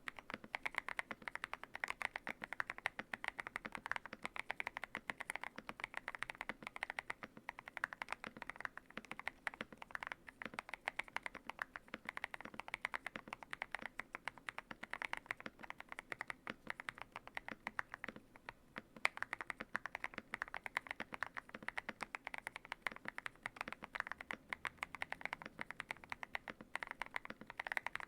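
Steady, fast typing on a Yunzii YZ98 mechanical keyboard with lubed Durock Ice King tactile switches and XDA-profile keycaps, the case tape-modded and foamed. It sounds like a dense run of keystroke clacks that starts abruptly and never pauses.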